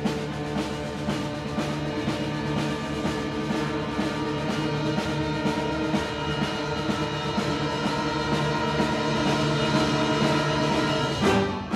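Concert band playing sustained wind chords over steady drum and timpani strokes, growing louder to a peak near the end.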